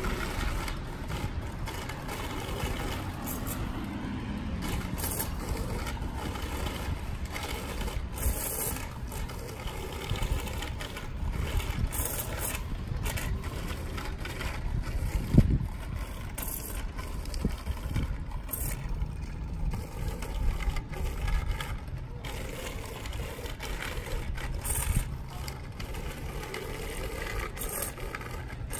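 Bicycle tyres rolling and rattling over a rough paved path, with wind rumbling on the microphone and a few small knocks.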